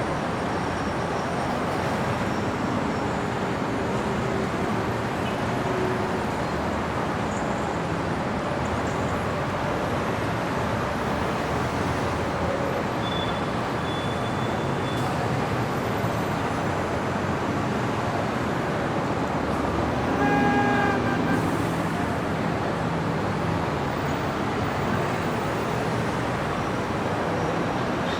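Steady city street traffic noise, a continuous wash of passing vehicles. About twenty seconds in a vehicle horn honks once, for about a second.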